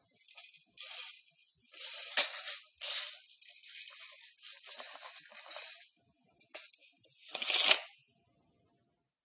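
Metal tape measure handled in several short rattling runs of the steel blade in its case, with a couple of sharp clicks and a loud snap near the end.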